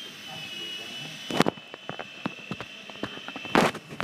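Blade micro RC helicopter's electric rotor motor whining at a steady high pitch, broken by a string of sharp knocks and clicks. The loudest knocks come about a second and a half in and near the end, as the helicopter comes down by the table onto the carpet.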